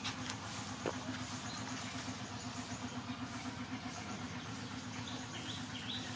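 Steady outdoor background noise with a constant low hum, a single sharp click just under a second in, and a few short high chirps near the end.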